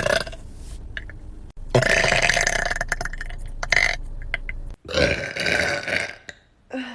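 A woman burping loudly: one long, drawn-out burp of about three seconds, then a second, shorter burp.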